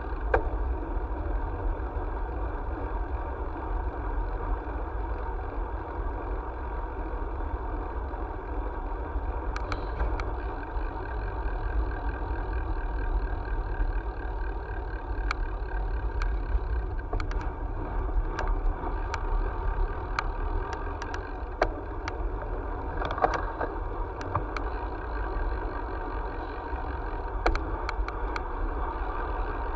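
Steady rush of wind and road noise from travelling along an asphalt road, with scattered light clicks and rattles.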